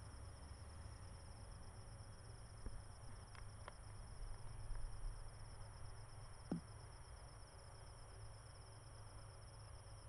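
Crickets chirring steadily, a fast even pulse, with a few faint taps and knocks in between.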